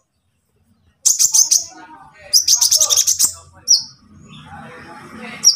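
A konin, a small sunbird, twittering in fast runs of very high, thin chirps. There are two runs, about a second in and about two and a half seconds in, then a couple of single short calls near the end.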